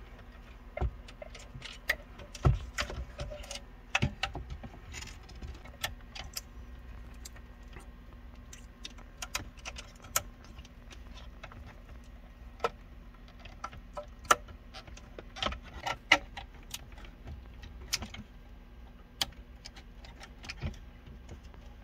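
Plastic wiring-harness connectors clicking and rattling as they are handled and plugged into the back of a factory GM radio and navigation unit, in irregular clicks scattered throughout.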